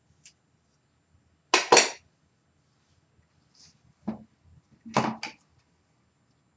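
ConAir Infinity deep-waver hair crimper clacking as its plates are clamped shut and opened: a sharp double clack about one and a half seconds in, a single clack near four seconds, and another double clack about five seconds in.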